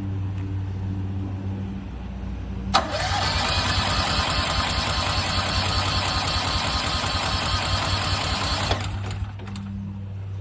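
Westinghouse 20,000-watt portable generator being cranked by its electric starter: a steady low hum, then about three seconds in the starter cranks the engine with a fast, even chatter for about six seconds and stops without the engine catching. The engine is not firing because fuel is not getting through to it.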